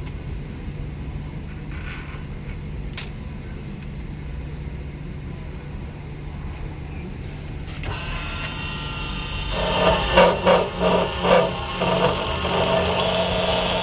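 Steady hum of shop machinery. From about eight seconds a louder, pulsing cutting noise of a power saw working through stainless steel tubing sets in.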